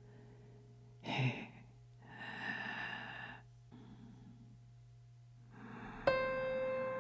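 A person gives a short breathy gasp and then a long sigh. Near the end a bell-like tone is struck and rings on steadily with bright overtones.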